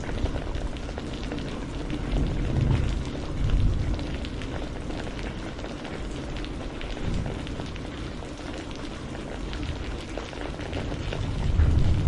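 Steady rain falling, a dense patter of individual drops on a surface. A low rumble underneath swells up twice, around three seconds in and again near the end.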